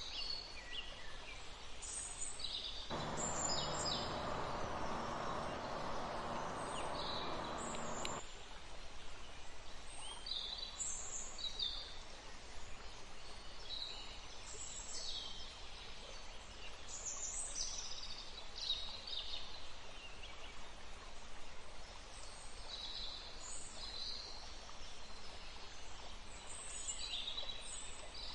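Forest birds chirping and calling, short high notes one after another, over a faint steady rush of running river water. About three seconds in, a louder, lower rushing noise cuts in and stops abruptly some five seconds later.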